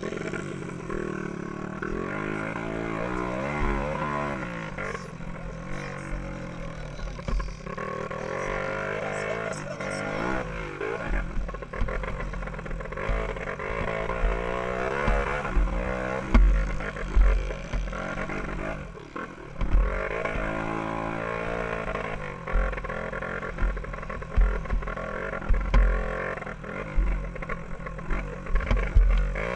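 Dirt bike engine revving hard and easing off again and again as the rider accelerates, shifts and slows for turns and jumps, its pitch rising and falling repeatedly. Wind and bumps buffet the microphone with low rumbles and thumps.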